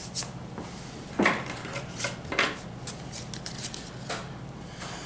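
Pokémon trading cards being handled and sorted by hand: a few short swishes and clicks of card stock, the loudest about a second in, over a steady low hum.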